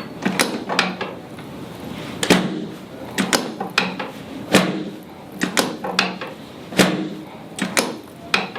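Drop section of a chiropractic adjusting table clacking as it is set and then dropped under quick thrusts: more than a dozen sharp clacks at uneven intervals, some in quick pairs.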